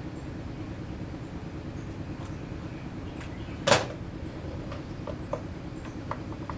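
Hand tools and parts being handled on a metal-topped workbench: one sharp clack about halfway through, as a screwdriver is picked up, then a few light clicks, over a steady low background hum.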